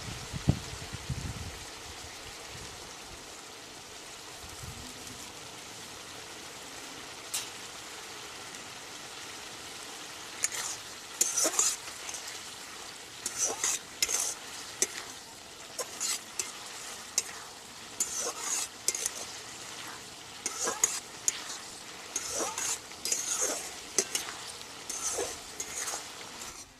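Food frying in a pan with a steady sizzle, with a knock about half a second in. From about ten seconds in, a utensil stirs and scrapes against the pan in repeated strokes, roughly one or two a second.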